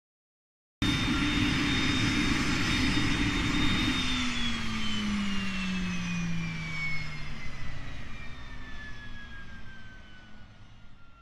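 Gas turbine auxiliary power unit (APU) running with a steady high whine, then shut down about four seconds in: the whine falls in pitch and fades as the turbine spools down.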